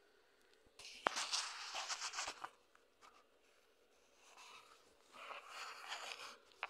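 Two bursts of scratchy rustling noise, the first with a sharp click about a second in.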